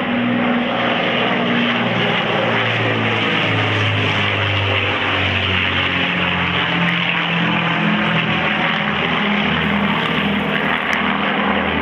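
Avro Lancaster's four Rolls-Royce Merlin V12 engines droning steadily during a fly-past overhead. The drone's pitch shifts slowly.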